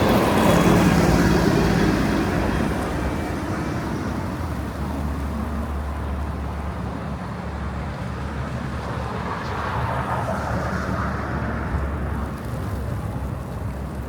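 Road traffic on a snow-covered street: a vehicle passes, loudest in the first two seconds, and another swells by about ten seconds in, over a steady low rumble.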